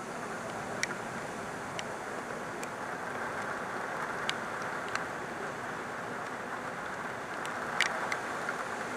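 Heavy rain falling steadily, an even hiss, with sharp ticks of single drops striking the camera every second or so, a close pair near the end.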